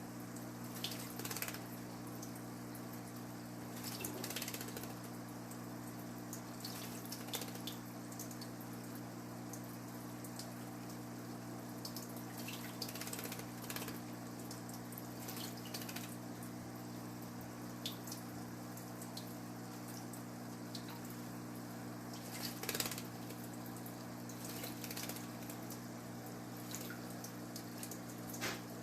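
Swainson's thrush bathing, splashing water with its wings in short bursts every few seconds, over a steady low hum.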